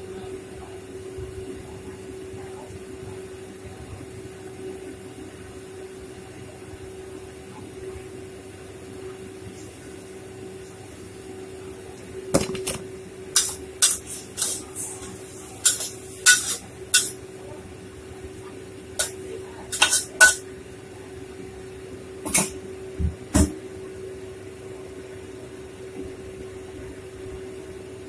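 Metal cookware clanking against a wok of frying shredded potatoes: a dozen or so sharp clanks, some in quick pairs, through the middle of the stretch, over a steady hum.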